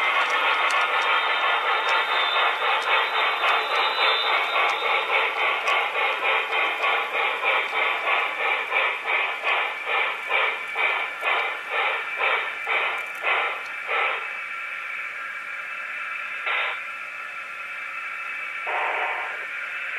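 Sound decoder of an HO scale Norfolk & Western 2-8-8-2 articulated steam locomotive model playing steam exhaust chuffs through its small speaker: a dense beat that settles into distinct chuffs about two a second, then stops about two-thirds of the way in. Two short bursts follow near the end.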